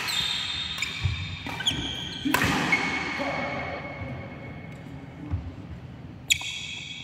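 Badminton rally: shuttlecock struck by rackets four times, each sharp crack followed by a brief ringing tail, the loudest hit about two and a half seconds in.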